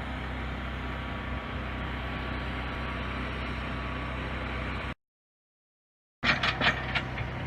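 An engine running steadily under a haze of outdoor noise. Just before the five-second mark it cuts to dead silence for a little over a second, then comes back with a few sharp clicks or knocks.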